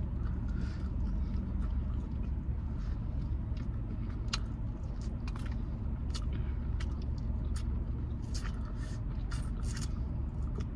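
Close-up biting and chewing of fried chicken wings: many short, irregular crunchy clicks over a steady low hum of a car cabin.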